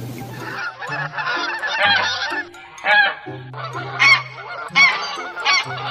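A flock of domestic geese honking: short nasal calls repeated several times, some overlapping.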